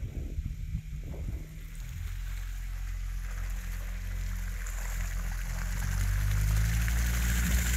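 ATV engine running steadily as the quad pushes through deep swamp mud and water, growing louder as it comes closer. From about five seconds in, the churning and sloshing of mud and water around the tyres rises alongside the engine.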